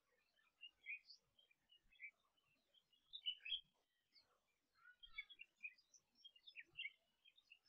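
Faint, scattered bird chirps and short calls, busiest about three seconds in and again between five and seven seconds.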